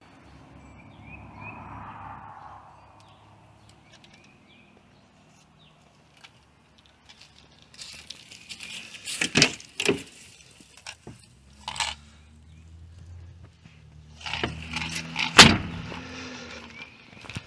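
A string of sharp clicks and knocks, the loudest about nine and fifteen seconds in, over a faint low hum: handling noises around a car.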